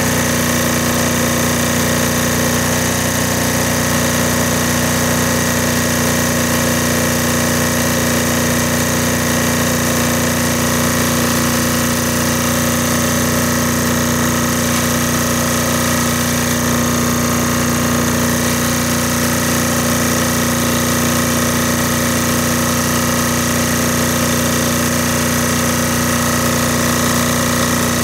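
AA Diesel air-cooled Yanmar-clone diesel generator running steadily under about 4500 watts of load, its engine speed set so the output sits close to 60 Hz. The engine note holds an even, unchanging pitch throughout.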